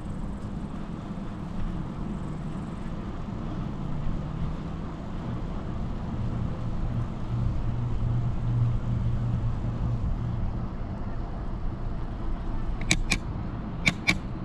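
Riding noise from a moving bicycle on an asphalt path, with a steady rush of tyres and air and a low hum that swells midway through and fades again. Near the end come two quick pairs of sharp clicks.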